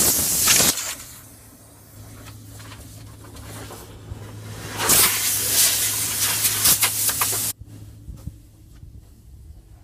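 Compressed-air nozzle hissing in two loud blasts: the first stops under a second in, the second starts about five seconds in and cuts off suddenly about two and a half seconds later. A steady low hum runs between and under them.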